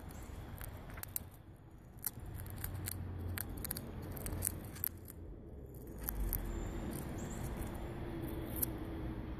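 Eastern chipmunk gnawing and cracking a peanut shell, a run of irregular sharp crunching clicks that are densest in the first half and thin out later.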